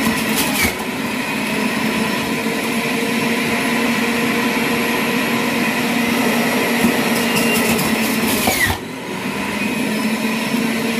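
Electric centrifugal juicer running on high with a steady motor whine. There is crunching near the start and again about seven to nine seconds in as produce is pushed down the feed chute into the spinning cutter, and the sound drops for a moment just before nine seconds in.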